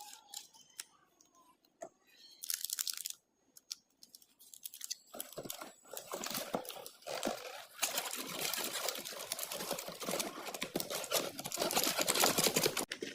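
Paper microwave-popcorn bag being handled and torn open, with crinkling and rustling; a short burst about two seconds in, then dense crackling from about five seconds on.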